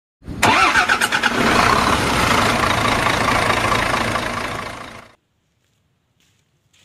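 An engine-start sound effect: a sharp click, then an engine catching and running loud and steady. It cuts off suddenly about five seconds in.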